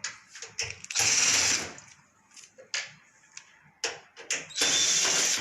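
Cordless drill-driver spinning out screws from a washing machine's front panel: two short runs of about a second each with a high whine, between light clicks and handling knocks.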